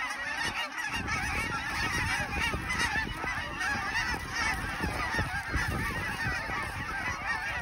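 A huge flock of Canada geese mixed with snow geese calling overhead: a dense, unbroken chorus of many overlapping honks and yelps. Wind buffets the microphone with a low rumble underneath.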